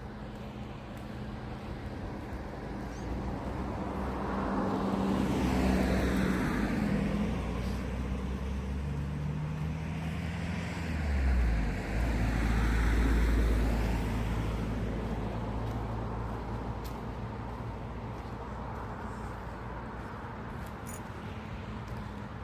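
Road vehicles driving past. One swells and fades about five to eight seconds in, a second with a deep engine rumble passes about twelve seconds in, and the sound then slowly dies away.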